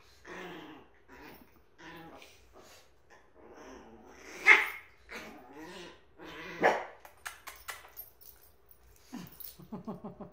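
Small dogs growling and barking, with two sharp barks about four and a half and six and a half seconds in as the loudest sounds, and a quick run of short growls near the end.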